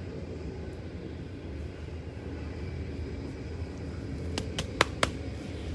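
Steady low background rumble, with a few short sharp clicks about four and a half to five seconds in.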